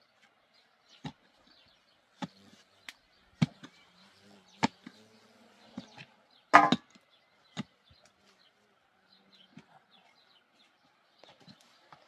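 A long-handled pick striking down into dry, stony soil while digging a hole: about eight irregular blows with gritty crunches, the loudest about six and a half seconds in.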